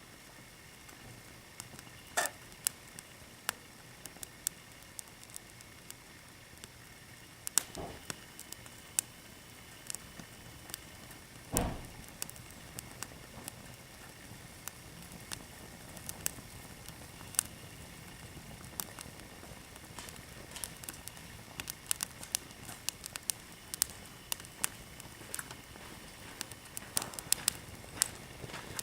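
Small fire crackling with many irregular sharp pops, and a few louder knocks here and there.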